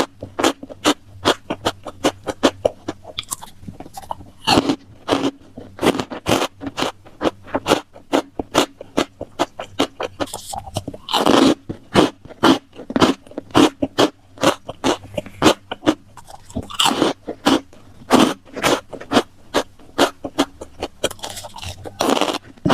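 Close-miked eating: crunchy food bitten and chewed, a quick run of sharp crunches several times a second, with a few longer wetter chewing sounds in between.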